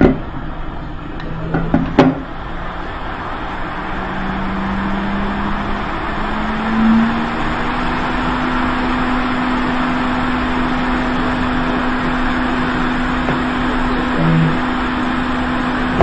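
Quick 861 hot air rework station blowing onto a board connector to reflow its solder: a steady rush of air with a fan hum that rises in pitch over a few seconds and then holds steady. A sharp click comes about two seconds in, just before the airflow builds.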